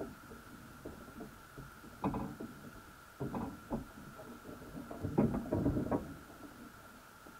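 Muffled knocks and scrapes heard underwater through a camera housing mounted on a wire crab pot, in irregular clusters about two seconds in, around three and a half seconds, and loudest between five and six seconds, over a faint steady high hum.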